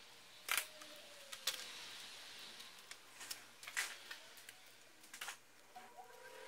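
Several sharp plastic clicks and taps spaced a second or so apart, from hands handling a laptop's display cable and hinge while fitting a replacement screen.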